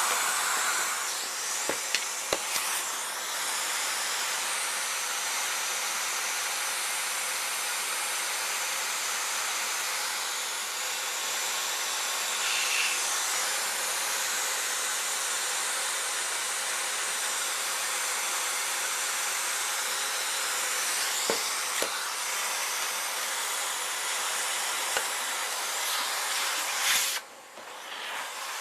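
Vacuum cleaner running steadily with a hissing rush of air, with a few light knocks. Near the end the sound drops away sharply.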